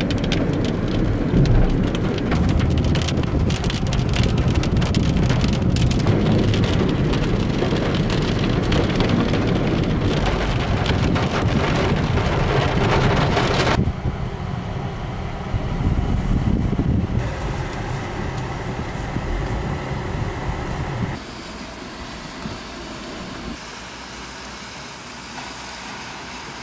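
Heavy thunderstorm rain beating on a car's roof and windscreen, a dense patter of hard drop hits. About halfway through it falls to quieter steady rain, and quieter again near the end.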